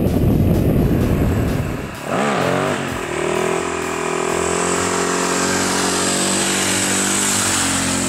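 Supermoto running at speed, heard as rumbling engine and wind noise, then a single-cylinder four-stroke supermoto revved up and down quickly a few times about two seconds in. It then holds a steady high note as it comes along on its back wheel in a wheelie.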